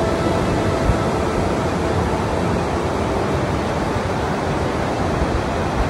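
Steady rush of flowing river water, an even hiss and roar that holds without a break.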